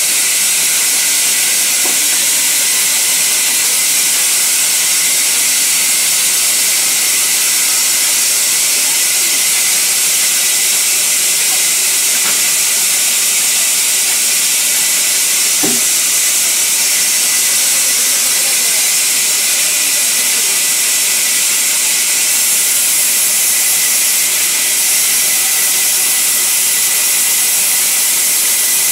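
Sawmill band saw cutting lengthwise through a sal log: a loud, steady, high hiss that runs on unbroken, with one faint knock about halfway through.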